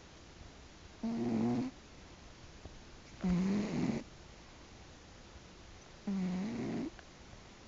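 Snoring: three slow snores, each a pitched, buzzing breath under a second long, coming about every two and a half to three seconds.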